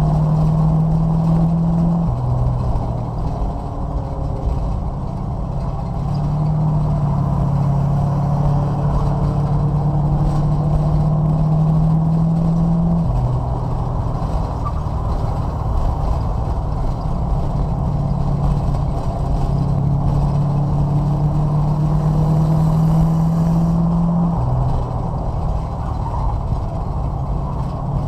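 Racing car engine heard from inside the cabin while lapping an oval: the engine note climbs steadily along each straight and drops sharply as the driver lifts for the turn, three times about eleven seconds apart, over a steady rumble.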